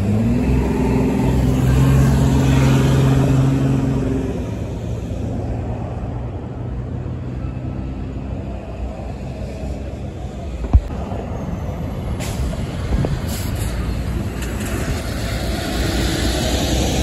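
Street traffic at an intersection: a vehicle's engine accelerating through in the first few seconds, then steady traffic noise with a single sharp click about 11 seconds in, and a semi tractor-trailer's diesel rumbling past near the end.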